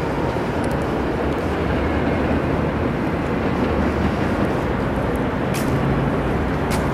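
Steady outdoor noise, a dense rumble that is heaviest at the low end, with a couple of faint clicks near the end.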